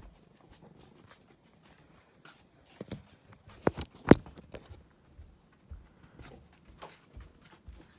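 Scattered light taps, clicks and rustles, with two sharp clicks close together about four seconds in, from a cat moving about close to the microphone.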